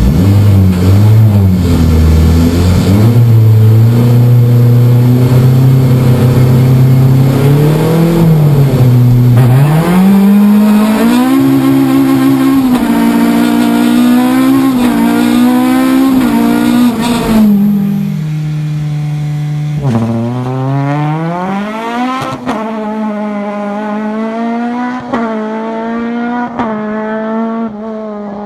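Rallycross Honda Civic EP3's K20 four-cylinder engine under hard throttle, heard from inside the cabin, with revs climbing and dropping through a run of quick gear changes. About two-thirds through, the sound switches to a race car heard from beside the track: it runs steadily at first, then accelerates up through several gears.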